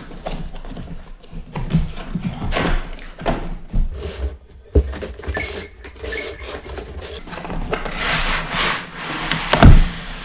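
Cardboard box being opened by hand: the lid and flaps scrape and rub, with scattered knocks and a loud thump near the end as the packing is handled on the desk.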